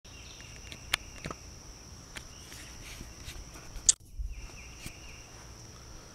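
Steady high-pitched chorus of insects in woodland, with a few sharp clicks; the sound cuts out briefly about four seconds in.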